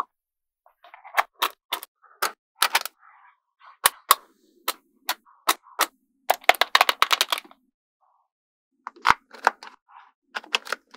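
Small neodymium magnetic balls clicking sharply as they snap together and are pulled apart, at irregular intervals. A quick rattling run of clicks comes in the middle.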